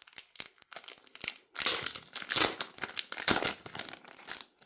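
Packaging around a set of postcards being handled and opened by hand: light scattered rustles, then a run of louder rustling from about a second and a half in until about three and a half seconds.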